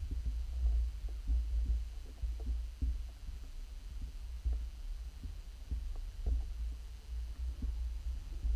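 Muffled underwater sound picked up through an action camera's waterproof housing: a steady low rumble of water movement, with irregular soft knocks and clicks scattered through it.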